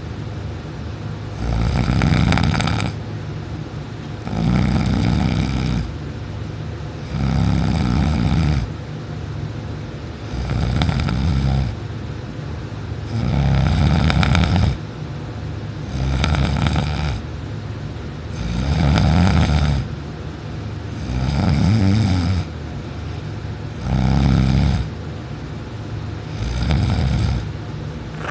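A person snoring loudly in deep sleep, lying on their back with the mouth open. There are ten loud snores, about one every two and a half to three seconds, each a second or so long, with a lower steady sound between them.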